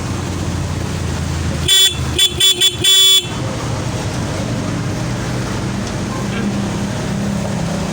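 Stock electric horn of a Yamaha Mio Sporty scooter sounding in five short honks, the last a little longer, as its relay is grounded directly with a test light: the horn itself works. A steady low hum runs underneath.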